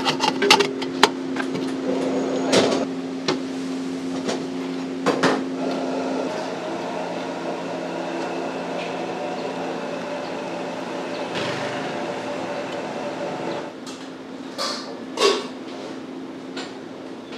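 Sharp metallic clinks and knocks, several in the first second as a stainless steel kettle lid is pressed on, then a few more scattered through the first five seconds. A steady hum runs underneath and stops about six seconds in, leaving a steady wash of kitchen noise with a few more clicks near the end.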